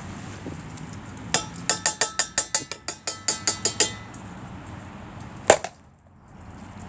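A rapid run of about fifteen sharp taps on something hard that rings slightly, about six a second for two and a half seconds. A single louder knock follows a little later.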